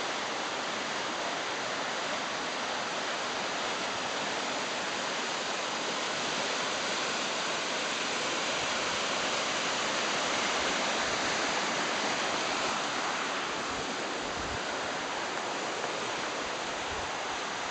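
Rushing current of the Gave d'Oloron tumbling through rapids beneath the bridge: a steady, even rush of water that swells a little midway. A few low bumps near the end.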